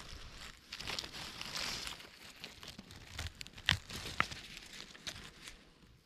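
Crumpling, tearing rustle of forest-floor litter as an orange-capped bolete is twisted and pulled up by hand, with two sharp snaps about half a second apart a little after halfway.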